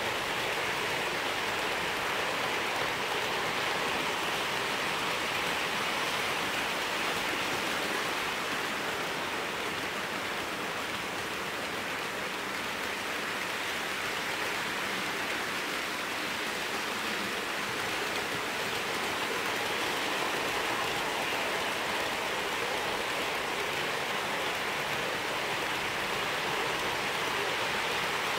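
OO gauge model trains running on the layout track: a steady rushing of metal wheels on rails with motor hum, including the Hornby Class 43 HST power car with its five-pole can motor. The noise swells while the train passes close and dips a little in the middle, when the near track is empty.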